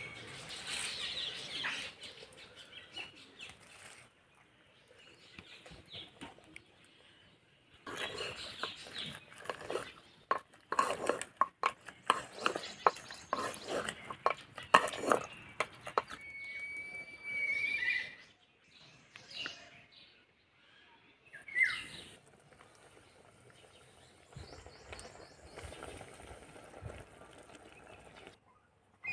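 A metal spoon stirs steaming spinach in an aluminium pressure cooker, making a rapid run of clatters and knocks against the pot. Near the end an animal calls a few times with short high calls.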